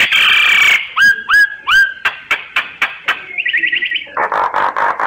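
Myna calling through a varied string of notes: a harsh rasping note at the start, three short rising whistles a little after a second in, sharp clicks, a quick run of five or six short notes, then harsh chattering near the end.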